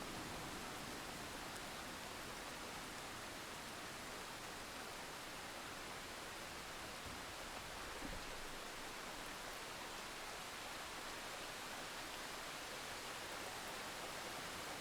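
Steady hiss of rain in a thunderstorm, with a faint low rumble about eight seconds in.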